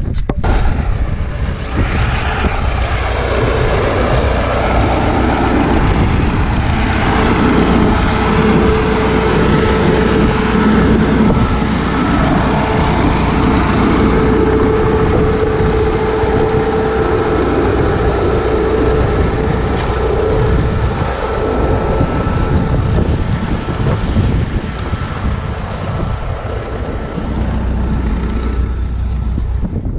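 Antique farm machinery engine running steadily with a droning hum, and a steady whine over it that fades out a little past the middle.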